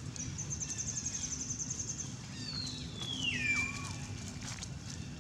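Animal calls: a fast, high trill lasting about two seconds, then a single call that glides down in pitch, over a steady low hum.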